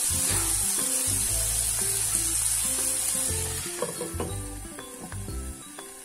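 Chopped vegetables and raw peanuts sizzling in oil in a nonstick frying pan on low flame, the sizzle dying down after about three and a half seconds as a glass lid is set on the pan, with a light clink. Background music plays under it.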